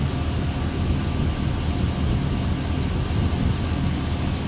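Chevrolet Silverado pickup engine idling, a steady low rumble with no change in pitch.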